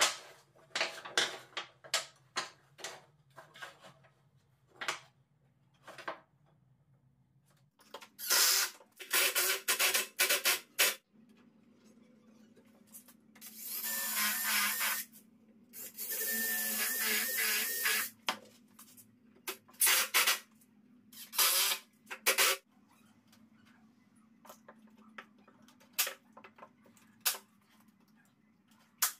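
Workshop assembly sounds: wooden strips knocking and clattering as they are handled. A cordless drill runs in two spells of about two seconds each, driving screws into a wooden frame. Near the end come a few sharp single clicks from a hand staple gun fastening wire mesh.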